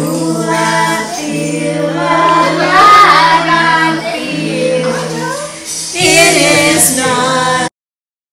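Music with singing voices over a steady low note, cutting off suddenly near the end.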